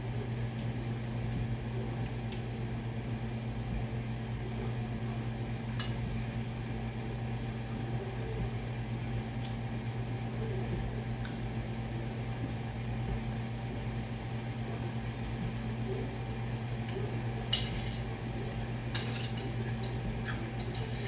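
Steady low hum of a kitchen appliance or fan, with a few faint light clicks of food and fingers against a ceramic plate.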